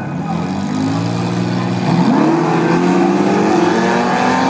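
1974 Toyota's engine accelerating hard down the drag strip. The engine note climbs steeply about two seconds in and keeps getting louder as it pulls away.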